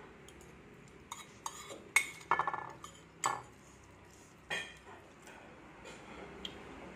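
A spoon clinking and scraping against a plate as food is scooped up, in a string of short, sharp strokes, loudest about two and three seconds in.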